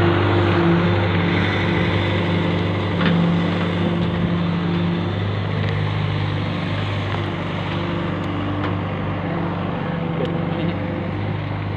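Diesel engine of a working excavator running steadily, its low hum shifting slightly in pitch now and then as the load changes.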